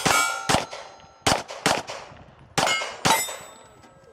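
Pistol shots at steel plates, about six in quick succession, each hit answered by the bright ringing clang of the struck steel.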